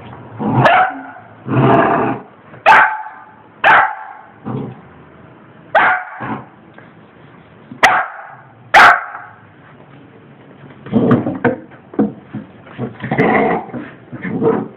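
A dog barking in loud, separate barks about once a second, then a busier run of barks in the last few seconds: the dog is barking at its own reflection in a mirror.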